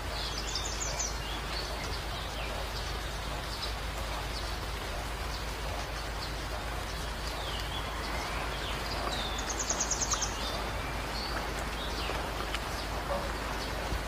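Several forest birds calling, with short chirps and whistles and a rapid trill about a second in and again near ten seconds, over a steady outdoor hiss.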